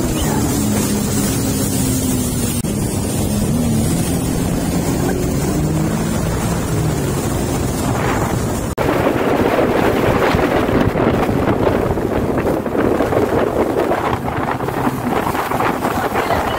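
Sea-Doo jet ski engine running at speed, its pitch rising and falling. About halfway through there is an abrupt cut to riding aboard a jet ski: heavy wind on the microphone and rushing water drown out the engine.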